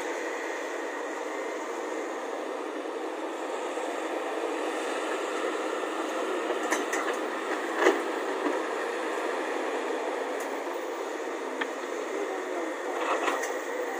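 Diesel engine of a Volvo crawler excavator running steadily under load as it swings a bucket of soil over a dump truck, with a few knocks around the middle, the loudest a thump just under eight seconds in.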